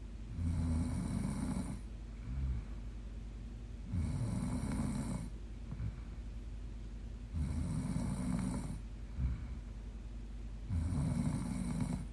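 A young woman snoring in her sleep: four snores at an even pace, about three and a half seconds apart, each lasting over a second, with a short softer sound between some of them.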